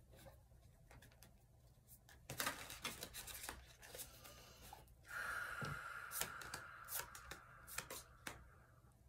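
Tarot cards being shuffled and handled: soft bursts of riffling and card snaps, densest from about five to eight seconds in.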